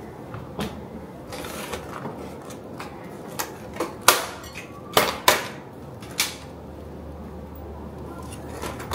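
A china plate set down on a wooden tabletop, then the clear plastic lid of a clamshell pastry container unsnapped and lifted, giving a run of sharp plastic clicks and crackles, loudest midway.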